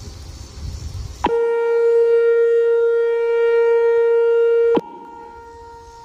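Tornado warning siren tone, edited to sound one held musical note. It sweeps up sharply about a second in, holds a steady pitch for about three and a half seconds, then cuts off suddenly and leaves a faint lingering echo of the note. Low outdoor rumble lies under the quiet stretches before and after.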